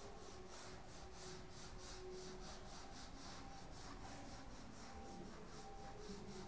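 Whiteboard eraser wiping a whiteboard in quick back-and-forth strokes, about four a second, faint and scratchy.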